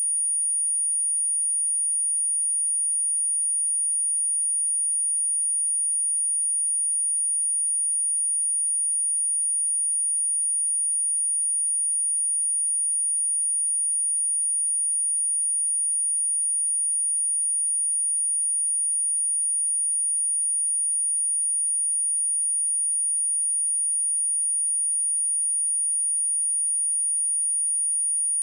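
A single steady, high-pitched pure tone: a 9528 Hz sine-wave test tone held without any change in pitch or loudness. It is a speaker-test and speaker-cleaning tone.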